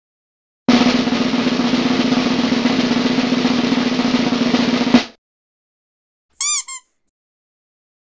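Drum roll, a fast continuous roll lasting about four seconds and ending in a single sharp hit. About a second and a half later come two short, high chirps.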